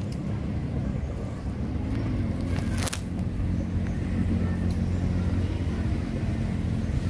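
Steady low hum of an engine running, with one short sharp click about three seconds in.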